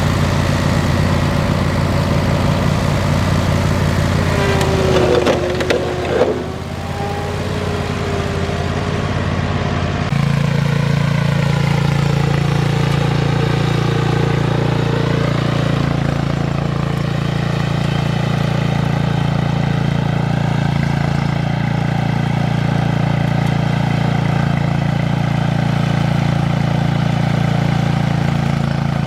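A vehicle engine running steadily. About ten seconds in, its tone shifts to a new steady pitch.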